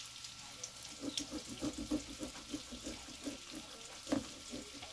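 A kitchen knife sawing back and forth through a lime on a cutting board, in quick even strokes about four a second, with one louder stroke near the end.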